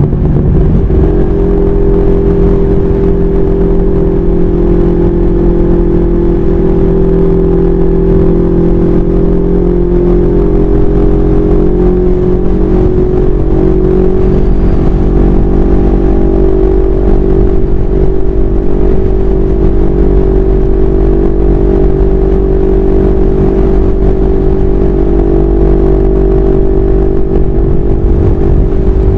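CFMoto 400NK motorcycle's parallel-twin engine under way at speed. Its pitch climbs in the first second or so, then holds steady at cruise.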